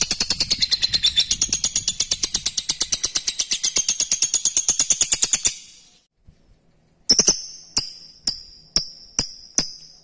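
A lovebird's ngekek: a long, rapid chattering trill of shrill high notes, about a dozen a second, that stops abruptly about five and a half seconds in. After a pause of about a second, sharp high ringing notes follow, about two a second.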